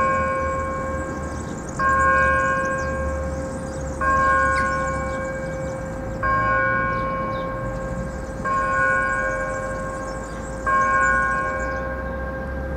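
A church bell tolling slowly, the same bell struck about once every two seconds, each stroke ringing on and fading into the next.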